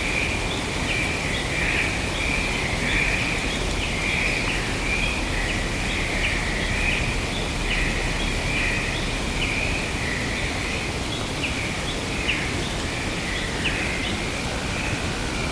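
Forest ambience: many short, high chirps, irregular and overlapping, over a steady hiss.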